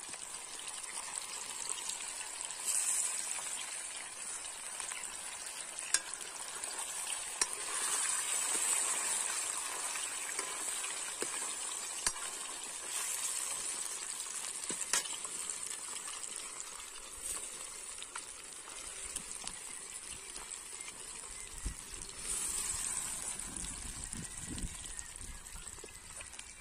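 Batter-coated fish pieces deep-frying in hot oil in a steel kadhai, a steady sizzle, with a few sharp clicks as a metal ladle stirs in the pan. A low rumble comes in near the end.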